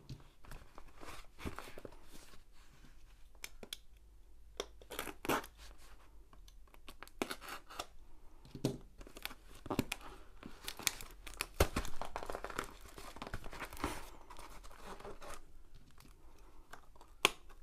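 A sharp knife slitting packing tape and cardboard on a shipping box, with the tape tearing and crinkling as it is worked loose: irregular scratching, tearing and crackling strokes, busiest about two-thirds of the way through.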